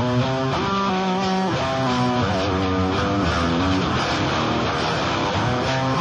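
Background music led by guitar, with held notes over a bass line at a steady level.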